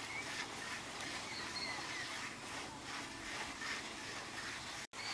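Steady outdoor hiss with a few faint bird chirps and soft scraping of loose soil as earth is dug out of a rabbit burrow. The sound cuts out abruptly for a moment near the end.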